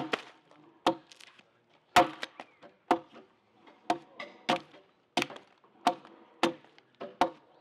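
A short, simple axe chopping into the side of a round log in about ten sharp blows at a steady pace, a little faster than one a second. These are the scoring notches cut along the marked line, which break the long wood fibres into sections so the log can then be rough-hewn into a square beam.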